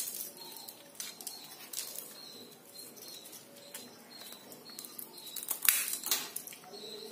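Crisp fried papdi being broken by hand and dropped into bowls of dal: scattered light crackles and snaps, loudest about three-quarters of the way through.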